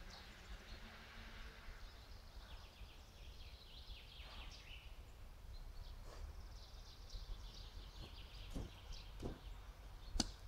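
Outdoor ambience with birds chirping and a low steady rumble, and a stick scraping and knocking on a bed of smouldering coals. A few knocks come in the last few seconds, the sharpest as a click about ten seconds in.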